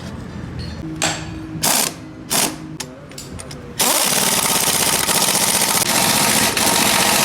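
A hammering power tool, worked on the gearbox, runs in three short bursts and then steadily for about three and a half seconds with a fast rattling rhythm.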